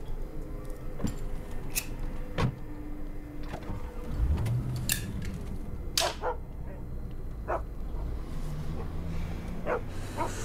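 A dog barking several times in short single barks, over a low steady hum.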